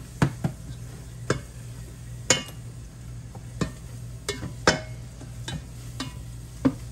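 A spoon stirring ground meat sautéing in hot oil in a pot on high heat: irregular clacks and scrapes of the utensil against the pot over a faint sizzle and a steady low hum.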